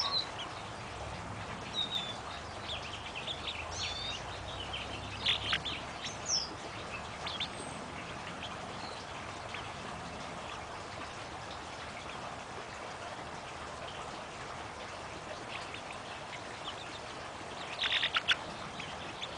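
Chickens making short, high-pitched calls, scattered through the first several seconds and again in a quick cluster near the end.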